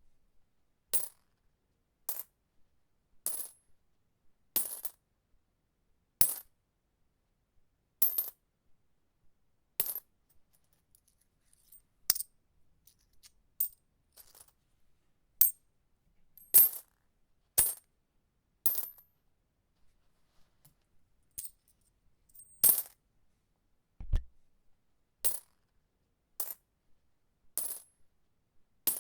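Coins dropped one at a time, each landing with a short, bright metallic clink and a brief ring, about nineteen drops spaced a second or two apart. A single low thump comes about two-thirds of the way through.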